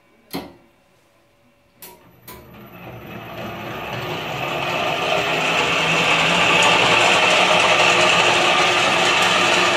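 HMK-1901 lab planetary ball mill: a sharp knock as its front door is shut and two light clicks, then the mill starts and spins up, its running noise growing over about three seconds to a steady, loud mechanical whirr.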